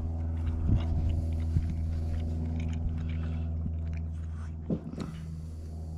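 A person chewing a mouthful of smoked meat, with a few short wet mouth clicks, over a steady low machine hum.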